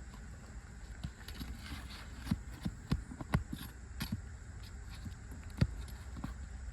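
Scattered, irregular knocks and clicks of hand work on asphalt roof shingles during a shingle repair attempt, the sharpest a little after two, three and five and a half seconds in, over a steady low rumble.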